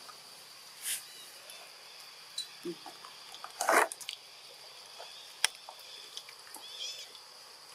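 Forest ambience: a steady high-pitched hum with faint scattered animal calls and chirps. There are a few sharp clicks and one brief louder rustling burst a little before halfway.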